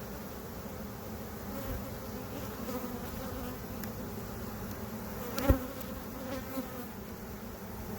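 Many honey bees from a packed nuc box buzzing steadily, riled up and feisty from being opened without smoke. A single sharp knock about five and a half seconds in.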